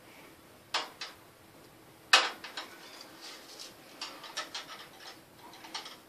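Sharp clicks and taps on a wire birdcage: two just under and about a second in, the loudest just after two seconds, then a loose run of lighter taps.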